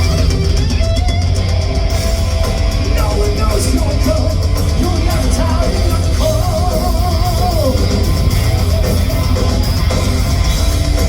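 Live heavy rock band playing loud and steady, with drum kit and electric guitar.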